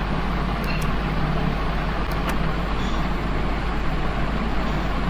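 Steady background hiss and low hum in the room, with a few faint clicks of a computer mouse as regions are ticked.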